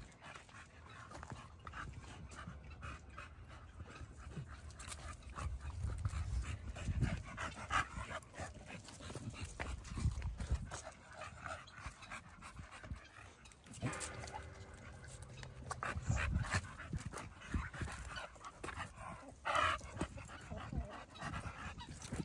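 American Bully dog panting, with scuffling and knocking from movement throughout.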